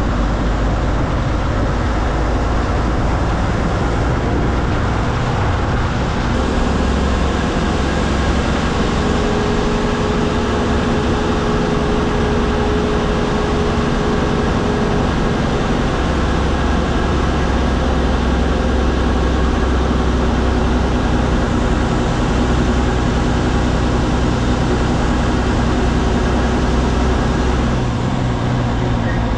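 MSRTC bus underway, heard from the driver's cabin: a steady engine drone with road and rattle noise, and the engine note shifting a few times.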